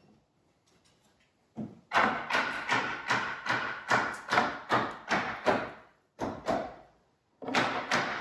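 A run of thuds as a 2x4 is knocked up into the top of a wood window frame, about three blows a second, then a short pause and a few more blows near the end.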